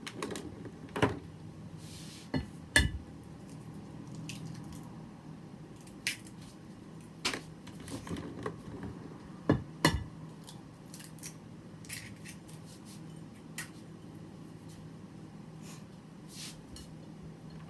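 Eggs being cracked into a microwave egg cooker: a series of sharp knocks and clicks of shells tapped and broken, with soft squishy drips and clinks of kitchenware, the loudest about a second in, about three seconds in and around ten seconds in.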